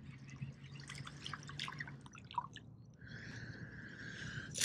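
Faint drips and small splashes of water as a small bass is brought to the kayak and lifted out on the line. A steady high whine starts about three seconds in and lasts about a second and a half.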